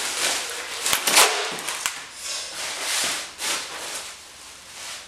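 Paper and plastic wrapping rustling as it is pulled out of a polystyrene shipping box, with a few sharp knocks about a second in.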